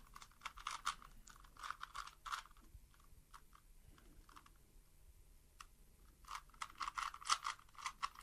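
Rubik's cube being twisted by hand: quick plastic clicks and clacks of its turning layers, in two rapid flurries with a few scattered clicks between.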